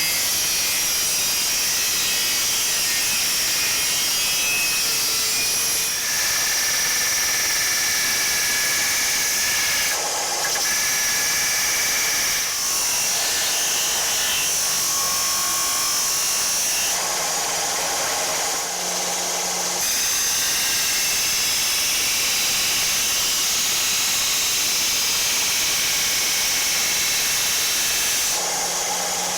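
A power tool cuts and grinds hardened tool steel, the blank of a weed slasher. The grinding noise is steady and high, and its tone shifts several times along the way.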